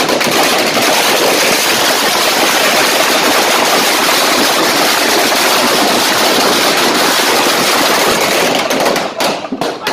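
A long string of firecrackers going off in a continuous rapid crackle. It stops about nine seconds in.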